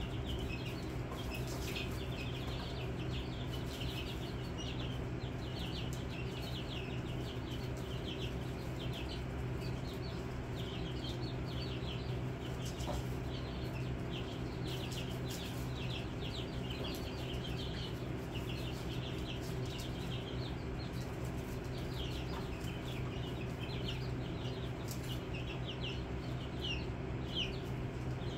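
Many young chicks peeping, a steady stream of short, high chirps overlapping one another, over a steady low hum.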